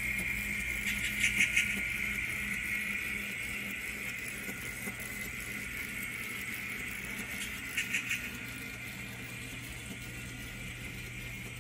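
N scale model passenger train running past on the layout track: a steady running whirr that slowly fades as the train moves away. Two short runs of three or four quick clicks, about a second in and again near eight seconds, come as the wheels pass over rail joints.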